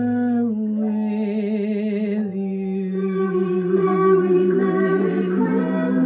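A woman singing long held notes with vibrato over soft instrumental backing, with a brief dip between the two notes a little past two seconds in.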